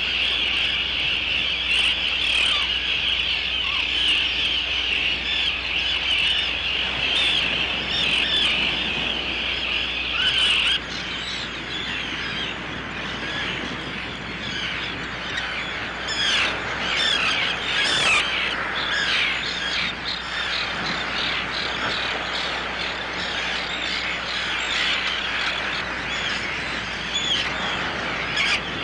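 A tern colony calling: a dense, continuous chatter of many harsh calls, changing abruptly about eleven seconds in to more separate, sharp calls from nearby birds.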